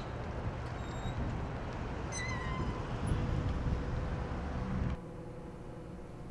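Night street ambience with a steady low traffic rumble and a short high squeak about two seconds in. About five seconds in it cuts off abruptly to a quieter indoor room hum.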